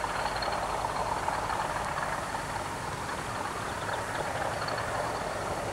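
Diesel locomotive running steadily as it hauls a passenger train past.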